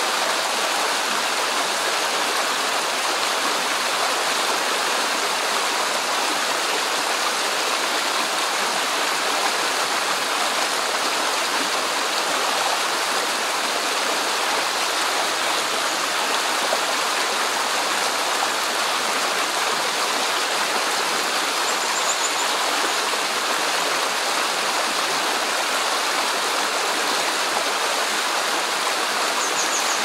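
Shallow rocky stream flowing over and between stones: a steady, even rush of water.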